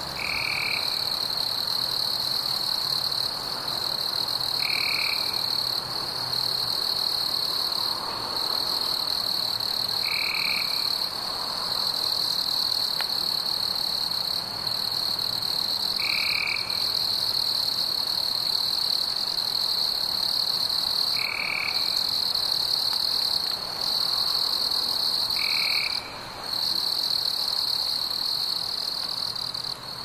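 Frog chorus: a steady high-pitched trill throughout, with a short, lower call standing out six times, every four to six seconds.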